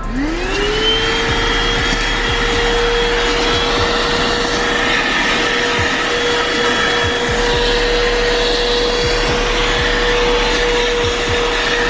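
ThisWorx 12-volt corded handheld car vacuum switched on, its motor whine rising in pitch over about a second as it spins up, then running steadily with a loud rush of air.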